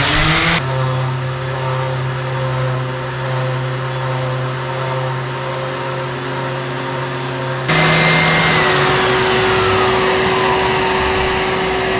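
Electric sander running against painted wooden hull planks, sanding off paint. It starts up at the beginning, runs at a lower, steady pitch for about seven seconds, then gets louder and higher about eight seconds in.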